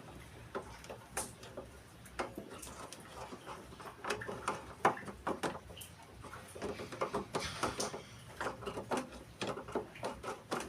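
Scattered light clicks and knocks of washing-machine mechanism parts and tools being handled, irregular and at a low level throughout.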